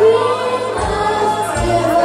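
A choir of children singing into microphones, holding long notes that move slowly in pitch.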